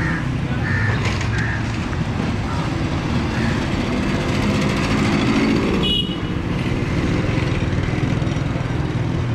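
Steady rumble of road traffic and vehicle engines, with a brief high beep about six seconds in.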